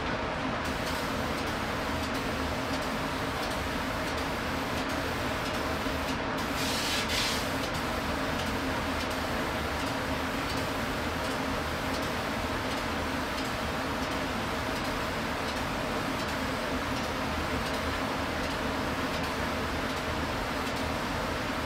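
Steady background hum and hiss, with a brief louder hiss about seven seconds in.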